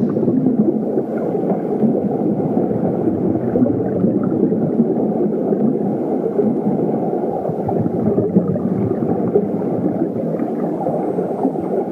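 Steady rush of whitewater rapids, a dull, low noise with no clear pitch.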